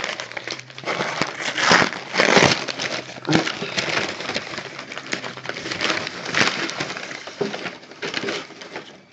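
Brown kraft paper wrapping crinkling and rustling as hands pull a package open, in irregular bursts, loudest about two seconds in.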